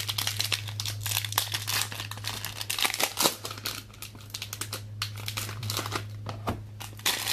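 Plastic wrapping crinkling and tearing in rapid, irregular crackles as a trading-card box or pack is opened, over a steady low electrical hum.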